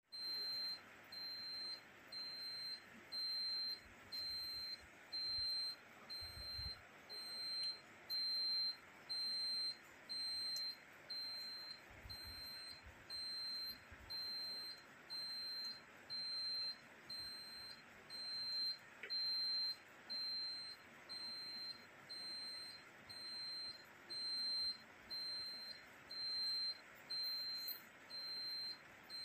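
High-pitched electronic beeping: one steady tone switching on and off about once a second, each beep about half a second long, over a faint steady hiss.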